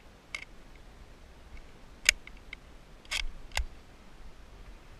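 Metal clicks from an old hunting rifle being loaded by hand: a small click near the start, a sharp click about two seconds in, then a short rattle and a final click about a second later.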